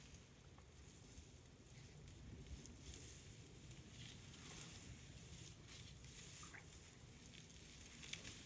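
Near silence with faint rustling and a few soft crackles: a bull African bush elephant tearing and chewing dry grass.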